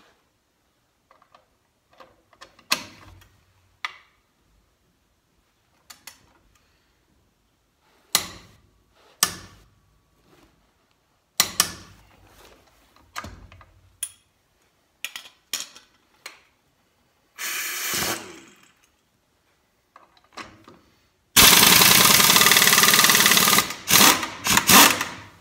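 Metal clinks and knocks of a socket and tools being handled, then, about 21 seconds in, an air impact wrench fed at 130 to 150 psi hammering loud and fast for about two and a half seconds, followed by a few short bursts, as it breaks loose a lug nut torqued to 120 ft-lb.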